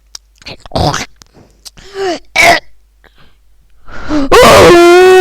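Several short, sharp vocal bursts, then a loud held cry on one steady pitch starting about four seconds in.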